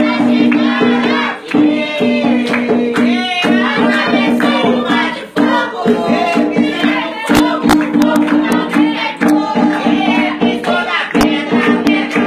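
A group of voices singing a devotional chant together, with hand-clapping throughout and a steady low held note that drops in and out under the singing.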